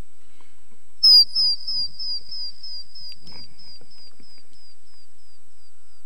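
A short, high falling chirp about a second in, repeated about four times a second and fading away over about four seconds, like a heavy echo on the sound system. A brief scuffing noise comes near the middle.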